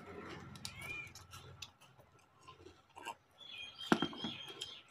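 People crunching and chewing crisps, with scattered small clicks. One sharp knock about four seconds in, from a drinking glass set down on the table.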